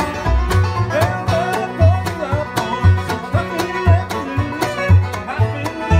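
A bluegrass band playing live: banjo rolls, mandolin and resonator guitar (dobro) over bass notes about twice a second. A man sings lead from about a second in.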